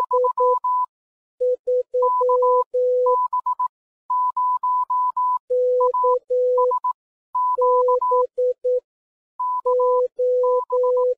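Morse code (CW) beeps of short and long tones, switching back and forth between a higher and a lower pitch.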